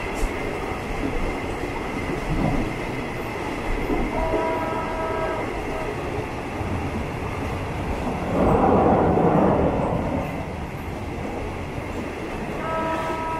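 Passenger train running, heard from a carriage window: a steady rumble and rattle of the cars. The locomotive's horn sounds twice as a chord of several notes, for about a second a few seconds in and again near the end. About eight seconds in, a louder rush of noise swells for a couple of seconds.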